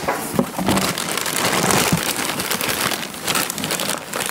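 Steady crinkling and rustling of packaging as new wheel bearings are unwrapped by hand.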